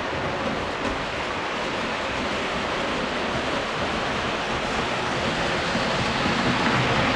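Steady rolling rumble of an O gauge model train running on the layout's track, growing a little louder near the end.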